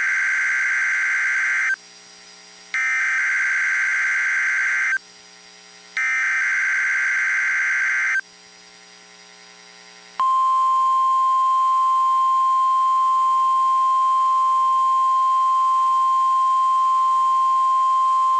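NOAA Weather Radio Emergency Alert System SAME header: three buzzy data bursts of about two seconds each, a second apart. About ten seconds in, the 1050 Hz warning alarm tone starts and sounds steadily as one unbroken pitch. Together they open a required weekly test of the weather-radio alarm receivers.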